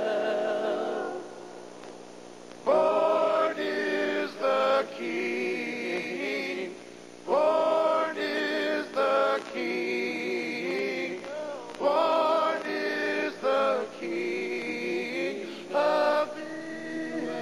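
Male voices singing a Christmas carol in close harmony, in sung phrases with long held, wavering notes and a brief softer lull about a second in.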